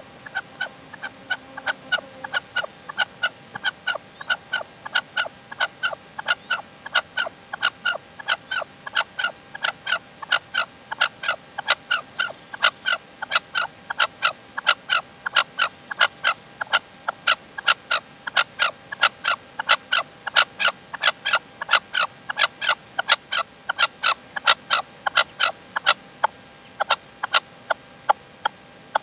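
Caged decoy male red-legged partridge calling in a fast, steady run of short, sharp notes, about three a second, kept up with only brief gaps.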